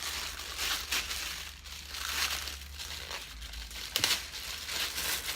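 Packaging crinkling and rustling as the airsoft sniper rifle is taken out of its wrapping, in several bouts, with one sharp click about four seconds in.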